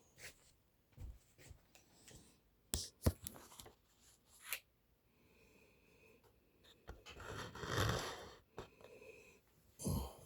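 Handling of a shipping box and its packing: scattered clicks and knocks, then a longer rustling scrape about seven seconds in.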